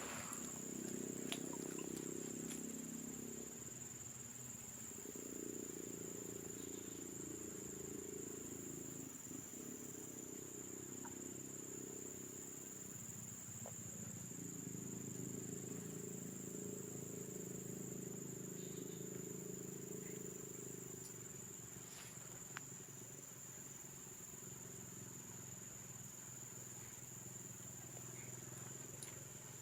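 Insects buzzing steadily in one high-pitched tone, over a lower murmur that swells and fades.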